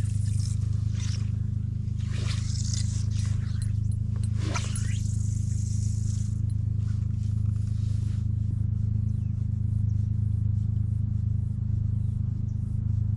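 Fly line swishing through the air and hissing through the rod guides as a 9 ft #8 fly rod is cast and the sinking line handled. There are several separate swishes, the loudest about four and a half seconds in, over a steady low drone.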